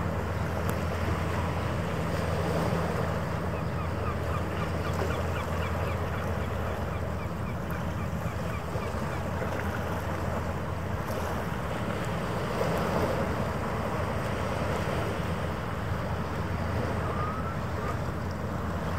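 Steady low drone of the cruise ship Pacific Explorer's engines and machinery, with wind buffeting the microphone and a wash of harbour water.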